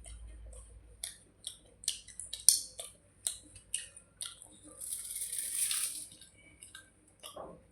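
Close-miked eating of wet panta bhat: a string of short wet mouth clicks and smacks from chewing, with a longer noisy stretch of eating about five seconds in.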